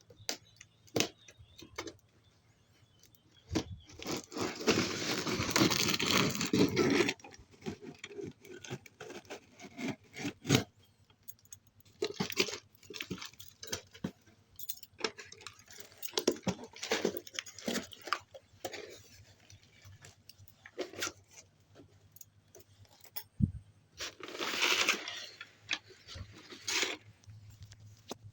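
Hands handling and unwrapping a package: long stretches of tearing and crinkling of wrapping, twice, among many scattered clicks and taps.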